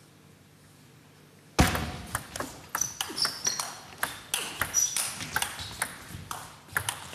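Table tennis rally: the ball clicks sharply off the bats and the table in quick succession, starting suddenly about a second and a half in, with a few short high squeaks of players' shoes on the court floor.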